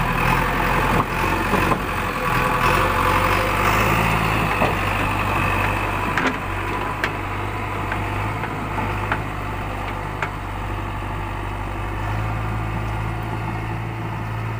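JCB 3DX backhoe loader's diesel engine running steadily as the machine drives along, louder in the first few seconds and easing a little after that.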